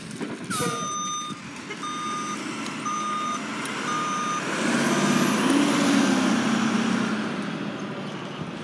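Republic Services garbage truck's backup alarm sounding four steady beeps, about one a second, the first held longest. Then the truck's engine runs louder for a few seconds, its pitch rising and falling.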